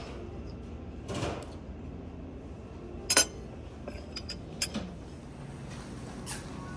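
China teacup, saucer and metal teaspoon clinking: one sharp clink about three seconds in, the loudest, then a few lighter clicks, over a low steady room hum.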